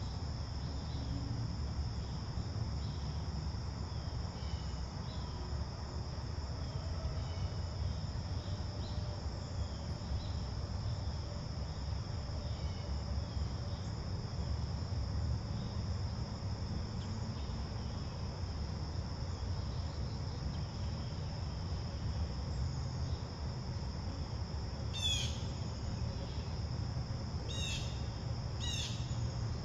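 Steady chorus of insects, a constant high-pitched trill, over a low steady rumble. Near the end a bird gives three short, sharp calls.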